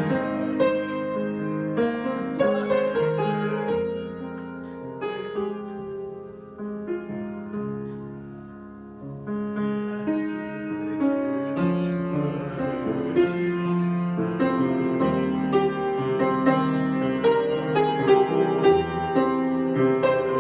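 Solo piano improvisation: chords and melody notes ringing over one another, easing to a softer passage about a third of the way in, then building fuller and louder.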